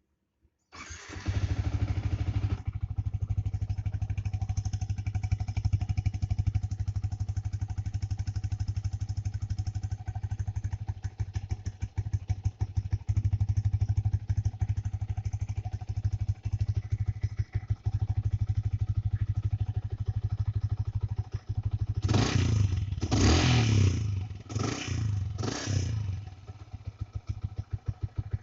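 A freshly serviced old-model Yamaha Vixion's single-cylinder four-stroke engine starts up under a second in, then idles steadily. Near the end it is blipped four times in quick succession before settling back to idle.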